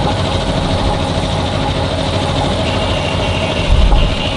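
Steady mechanical drone of an engine or machine running, with a brief louder low rumble nearly four seconds in.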